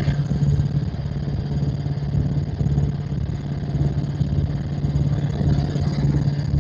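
Helicopter in flight: its engine and rotor run with a steady, even drone and a strong low hum.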